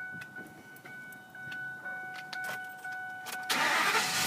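Scattered clicks and a faint steady electronic tone inside a truck cab, then about 3.5 s in the 2008 Ford F350's V10 petrol engine starts up with a sudden loud rush.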